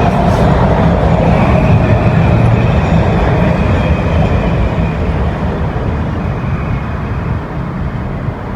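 Washington Metro railcar running between stations: steady rumble of the car and wheels on the track with a faint whine above it, growing gradually quieter in the second half.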